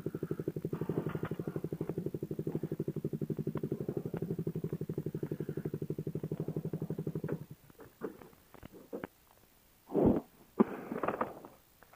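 Motorcycle engine idling with a steady, rapid pulse, then switched off about seven seconds in. A few faint clicks and two short bumps follow near the end.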